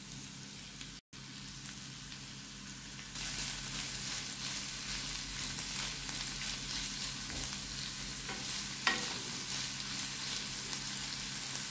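Diced potatoes and chopped boiled cauliflower sizzling in hot oil in a frying pan while a wooden spatula stirs them. The sizzle gets louder about three seconds in.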